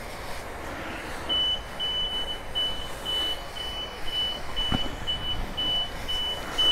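Self-serve car wash pressure-washer wand spraying water onto a 50cc scooter, with a high electronic beep starting about a second in and repeating about twice a second, the kind a coin-op wash bay gives when paid time is running out.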